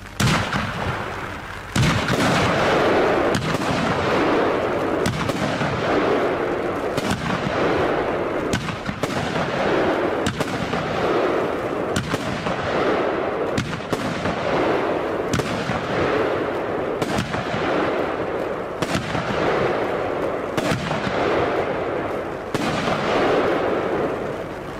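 Pretty Heaven consumer firework battery (cake) firing its shots one after another, sharp bangs roughly every one to two seconds, each trailing off in a rumbling echo.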